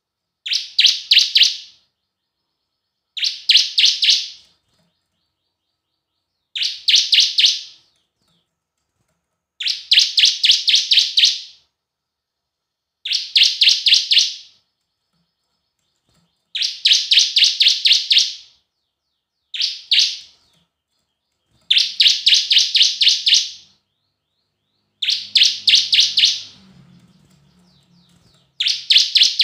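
Bar-winged prinia (ciblek) singing: loud phrases of a fast run of five to seven sharp, high chipping notes, each phrase one to two seconds long and repeated about every three seconds.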